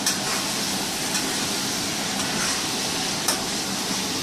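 Pork and vegetables sizzling in a hot wok as they are stir-fried with a metal spatula, the spatula clicking against the wok twice: once just after the start and once about three seconds in.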